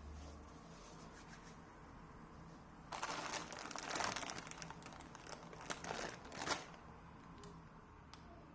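Crinkling, rustling handling noise for about four seconds, starting about three seconds in and stopping near the end.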